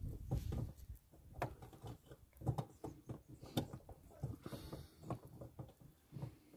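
Irregular small clicks, taps and scrapes of hands fitting a replacement bulb into the back of a Peugeot 5008 headlamp, pushing it into its seat. The loudest clicks come about one and a half, two and a half and three and a half seconds in.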